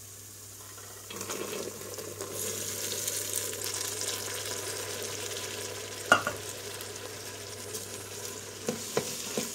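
Par-boiled white beans tipped into hot oil with fried onion and tomato and pepper paste in a stainless-steel pot, the frying sizzle rising about a second in as they land, then stirred with a wooden spoon. A sharp knock about six seconds in, and a few light knocks near the end.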